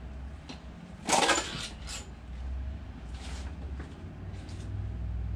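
Metal engine parts clanking and scraping as a part is worked off a bare LS V8 engine block, with one loud clank about a second in and quieter knocks after. A low steady hum runs underneath.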